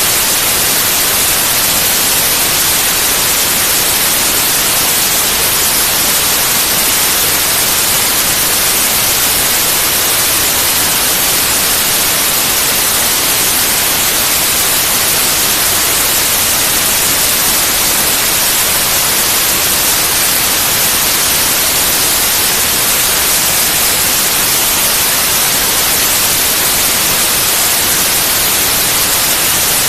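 Steady, unvarying white noise: an even hiss, strongest in the treble.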